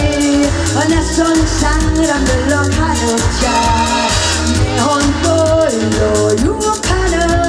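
A woman singing a Korean trot song into a microphone over a band accompaniment with a steady drum beat, bass and keyboards.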